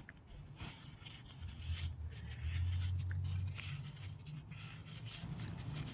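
Faint scraping and rubbing of a nut being turned off a corroded car battery terminal bolt loosened with WD-40, with small metal ticks. A low hum swells in the middle of it.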